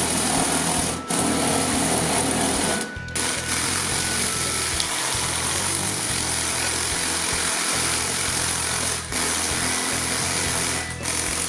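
Electric motors of a remote-controlled LEGO Technic tracked model whirring as its plastic treads rattle over a tile floor. The sound drops out briefly a few times.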